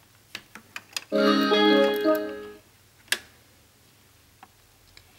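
Short electronic power-on melody from a Samsung LE32B450 LCD TV starting up on mains power: several steady notes in a run lasting about a second and a half. Light clicks come before it, and one sharp click about three seconds in.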